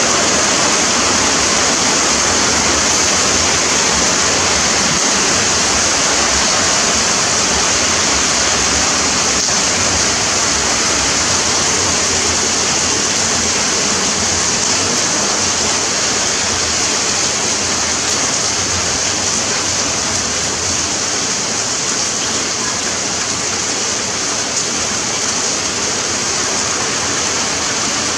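Torrential rain pouring down steadily, a dense, even rushing hiss.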